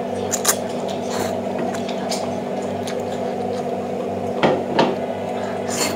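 Eating sounds: noodles slurped and chewed, with short sharp slurps and mouth smacks, the loudest pair about four and a half seconds in, over a steady low hum.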